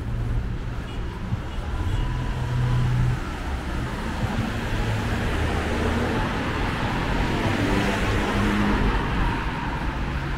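Busy city road traffic: cars driving past close by in a steady wash of engine and tyre noise, swelling as a car passes near about seven to nine seconds in.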